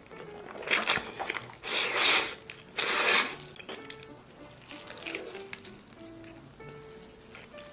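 Three loud slurps of spicy cheese noodles in the first few seconds, then quieter chewing and mouth clicks, over soft background music.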